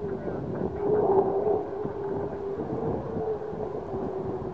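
Jet engines of an F-35A Lightning II and a second fighter jet flying overhead: a steady rumble with a droning tone, swelling a little about a second in.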